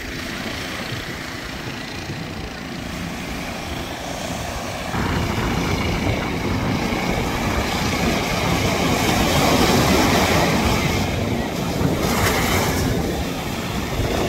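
Small waves washing in over sand, then about five seconds in a louder sound takes over: the steady running of a small fishing boat's outboard motor mixed with wind and sea.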